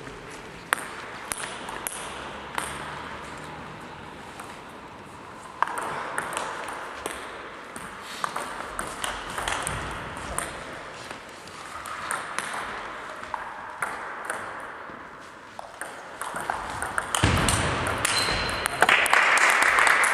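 Scattered sharp clicks and taps over a low background hiss, then a burst of applause starting near the end.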